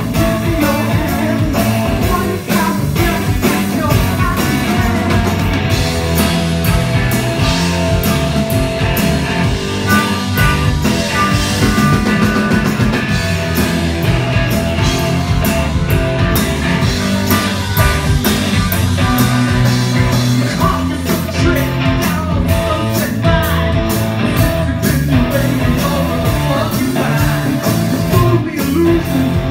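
Live rock band playing a glam-rock song, a male lead singer over electric guitar, bass and drums.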